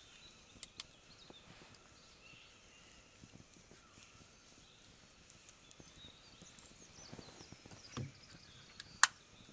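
Quiet outdoor ambience with scattered sharp clicks and knocks: a low thump about eight seconds in, followed a second later by the loudest, sharpest click, and faint short high chirps in the background.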